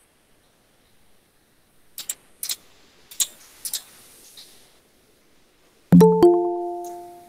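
A few faint clicks, then a loud two-note electronic chime from a video-call app that fades away over about a second and a half, signalling that someone is asking to join the call.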